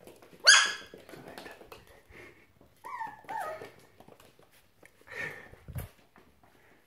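Small puppy giving one sharp, high-pitched yelp about half a second in, then two short falling whines around three seconds in. A thump follows near the end.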